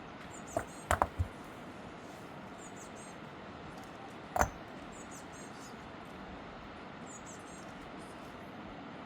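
Short, high chirps from a small animal, repeating every second or two over a steady hiss. A few sharp knocks come about a second in, and one more near the middle.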